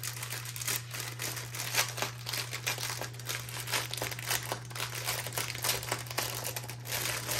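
Clear plastic packaging crinkling and crackling irregularly as a bag of diamond-painting drill packets is opened and the small drill bags inside are handled.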